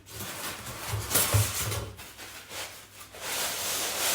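Cardboard shipping box being opened and handled: cardboard rubbing and scraping, loudest about a second in, then steadier rustling from about three seconds in.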